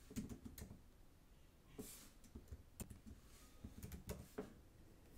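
Faint computer keyboard keystrokes and clicks, scattered and irregular, over near-silent room tone.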